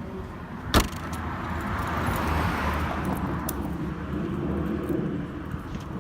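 A car: a sharp click about a second in, then engine and road noise that swells in the middle and eases off.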